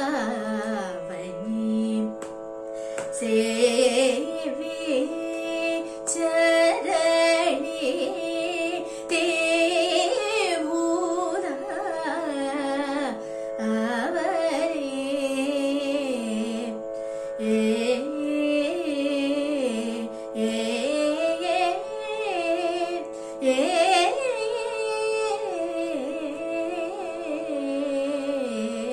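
A woman singing a Carnatic-style devotional kirtan, her melody gliding and ornamented, over a steady drone.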